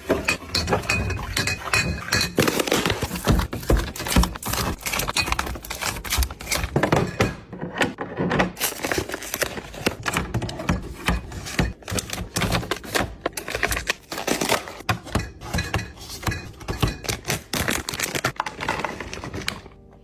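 Rapid, close clatter of kitchen containers, lids and packaged goods being handled, knocked together and set down in restocking, a dense run of knocks, clicks and clinks.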